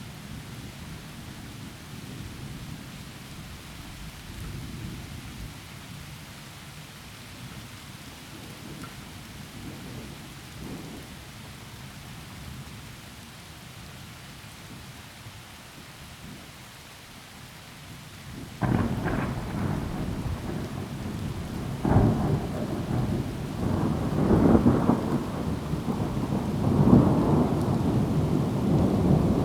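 Thunderstorm: steady rain falling, then about two-thirds of the way in a thunderclap breaks suddenly and rolls on in repeated loud peals over the rain.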